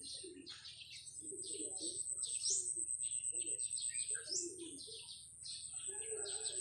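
Several small birds chirping and twittering continuously outdoors, with softer low calls underneath and a steady high-pitched whine throughout.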